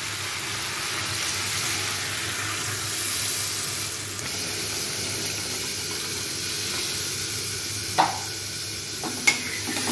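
Taro corms sizzling in hot spiced oil in a metal pan, with water poured in partway through and the pan going on hissing. A metal spatula knocks against the pan twice near the end.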